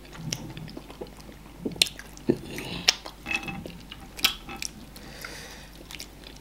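Close eating sounds of amala with slimy ogbono soup and meat eaten by hand: wet chewing, biting and lip smacks, an irregular string of sharp smacks and clicks.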